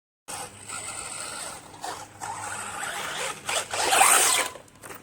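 Electric RC monster truck on a 3S battery driving on dirt: a high motor whine with tyres scrabbling, surging in bursts, loudest about four seconds in.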